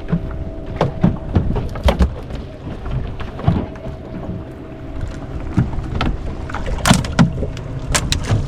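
Fishing boat's engine running with a steady hum, with irregular knocks and thumps on the boat throughout, the sharpest about two seconds in and near the end.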